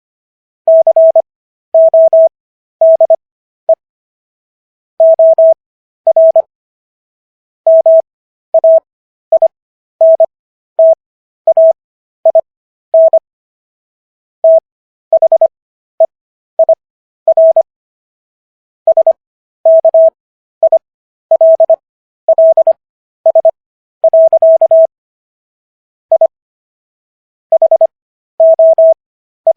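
Morse code practice tone: a single steady pitch keyed on and off in dots and dashes, sent at 25 words-per-minute character speed with Farnsworth spacing, with long pauses between characters, for an overall 15 words per minute.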